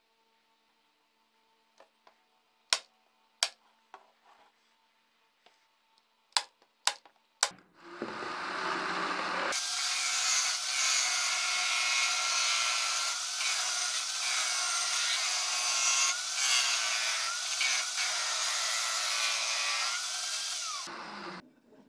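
A few sharp knocks of wooden parts set down on a workbench, then a drill press fitted with a sanding drum starts about eight seconds in and sands the inside of a thin wooden mandolin rim, a loud grinding hiss with a wavering whine as the rim is moved against the drum. It stops about a second before the end.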